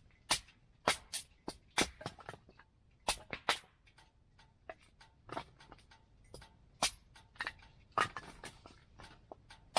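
Firewood crackling and popping as it burns in a small tent wood stove: irregular sharp snaps, a few a second.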